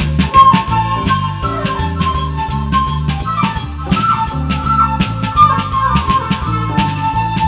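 Instrumental band jam: a flute plays the melody over electric bass, electric guitar and a drum kit keeping a steady beat.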